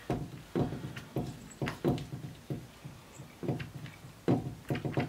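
Gloved hand working thick epoxy over a mug on a stopped cup turner, with irregular soft knocks and rubbing about twice a second.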